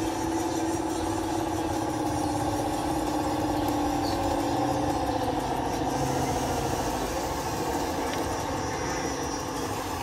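Radio-controlled model Cat D11 bulldozer driving forward on its tracks, its motors and gears giving a steady whine that drops slightly in pitch about halfway through as the blade pushes into loose soil.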